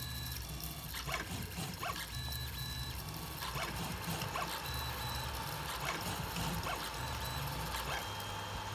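3D printer's stepper motors whining in short tones that start, stop and change pitch as the print head makes its last moves, with light clicks over a low hum. Near the end the moves stop and only a steady hum and a thin high tone remain.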